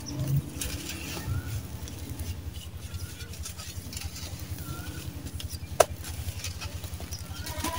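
Hands crushing and crumbling dry, gritty sand-cement lumps: soft crackly crunching as the lumps break, with one sharp snap about six seconds in. A low, fast-pulsing drone runs underneath.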